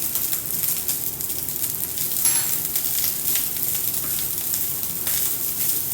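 Fried rice sizzling in a hot pan, a steady frying hiss full of small crackles, with one brief louder burst about two seconds in.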